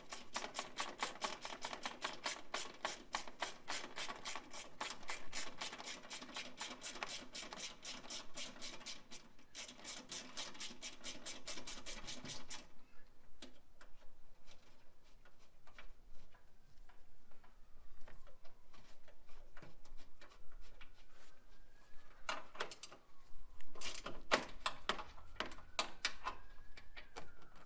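Ratchet wrench clicking rapidly and evenly as 13 mm bolts are backed out, with a brief pause, stopping about halfway through. After that come scattered clicks and a few short runs of ratcheting near the end.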